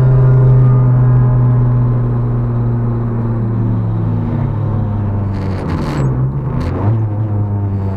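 Swapped Fiat 1.2 16-valve FIRE four-cylinder engine with a straight-through stainless exhaust, heard from inside the stripped cabin and pulling hard at steady revs. The note falls in pitch as the car comes off the throttle, then rises briefly near the end through a gear change.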